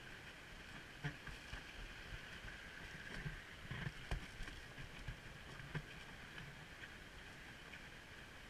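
Wicker toboggan sliding on its wooden runners down a tarmac road: a steady scraping hiss, with scattered knocks and thuds, clustered about three to four seconds in, from bumps and the drivers' boots on the road.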